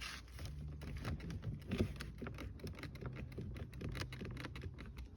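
Rapid small clicks and creaks from a Skoda Kodiaq's interior door handle being pressed and worked, two plastic trim pieces rubbing against each other, over a faint steady low hum.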